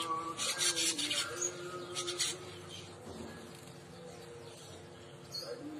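Weaver bird (manyar) singing: short bursts of buzzy, hissing chatter about half a second in and again around two seconds in, then quieter. This is the weaver song used as a lure call to get other weavers to sing.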